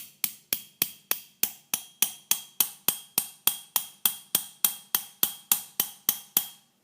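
Small hammer tapping a punch to drive the trigger pin out of a Magnum Research Desert Eagle's frame: even, ringing metal-on-metal taps, about three and a half a second, stopping just before the end.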